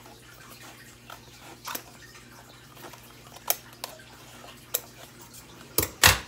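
Scissors snipping paper a few times, single sharp snips a second or more apart, over the faint steady trickle of a fish tank filter. Near the end a louder knock as the scissors are set down on the table.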